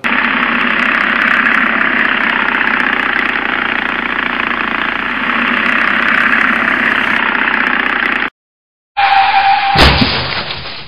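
Small motorcycle engine running steadily as the bike rides along. It cuts off abruptly; after a moment of silence a short steady tone sounds, then a sudden loud crash as the motorcycle hits a car.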